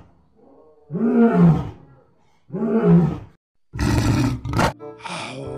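Lion roaring: two drawn-out roars about a second and a half apart, then a rougher, noisier roar about four seconds in.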